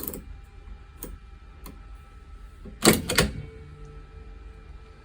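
Hand-operated key punch machine clicking as it is set, then a loud double clunk about three seconds in as the lever punches a cut into a Schlage key blank.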